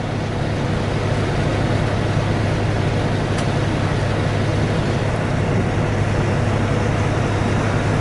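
Steady low drone of a car ferry's engine heard from on board, with an even rushing hiss over it.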